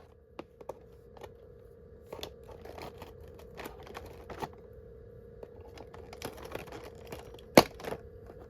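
Advent calendar packaging being opened and handled by hand: faint rustling with scattered light clicks and taps, and one sharper tap about seven and a half seconds in.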